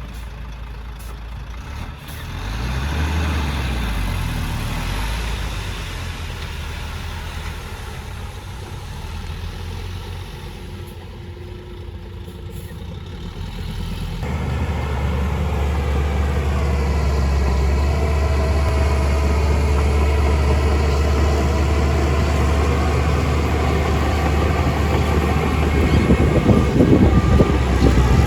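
Heavy diesel engine of large construction machinery running with a steady low rumble, getting louder and heavier about halfway through as it works harder.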